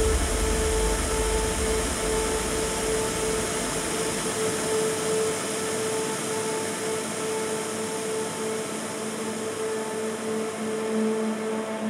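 Television static: a steady white-noise hiss with held droning tones under it. A deep rumble fades out over the first few seconds, and a lower drone comes in near the end.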